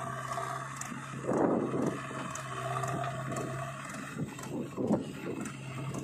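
Diesel engines of a JCB 3DX backhoe loader and a Mahindra tractor running with a steady low hum, broken twice by short, loud, noisy rushes, about a second and a half in and again near five seconds.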